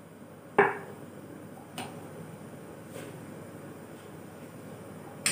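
A metal spoon knocks sharply once against the cookware about half a second in, then gives two faint ticks and one more sharp click at the end, while seasoning powder is spooned into a pot of broth. A low, even hiss runs underneath.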